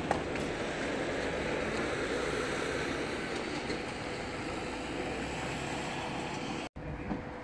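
Steady outdoor background noise, a rushing hiss over a low rumble, with a brief dropout near the end.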